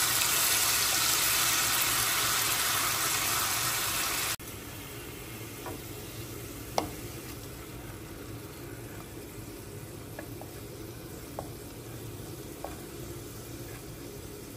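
Ginger-garlic paste and cumin seeds sizzling in hot oil in a non-stick kadai, stirred with a wooden spatula. The sizzle is loud for the first four seconds or so, then drops suddenly to a quieter sizzle with a few light taps of the spatula on the pan.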